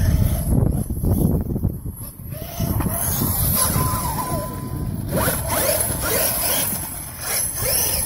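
Brushless motor of a 1/5-scale KM X2 RC short-course truck, a 520 kV Leopard on 8S, whining up and down in pitch with the throttle as the truck drives across grass, over a steady low rumble.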